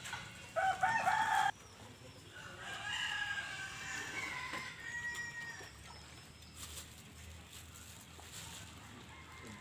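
A rooster crowing: a loud call about half a second in that cuts off after a second, then a longer, fainter crow.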